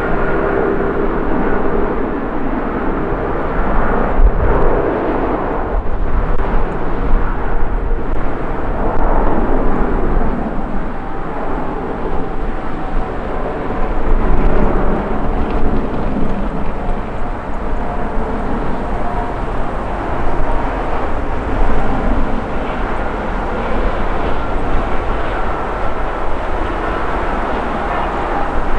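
Jet airliner engines running as airliners taxi, a steady rumble with a faint engine whine in it, swelling slightly about four and fourteen seconds in.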